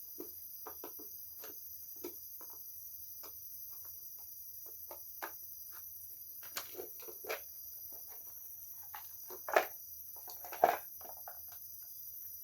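Light handling noises: scattered small clicks and taps of hands working with parts, with two louder knocks near the end.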